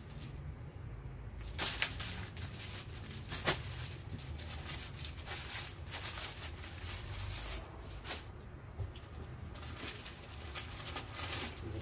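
Packaged goods being handled and rummaged through in an open cardboard box: rustling and crinkling, with two sharp crackles in the first few seconds, over a steady low hum.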